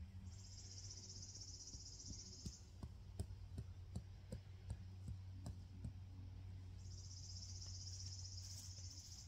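A high, even insect buzz starts twice, once near the start and once toward the end, each time for about two seconds. Between the buzzes comes a run of light, irregular taps.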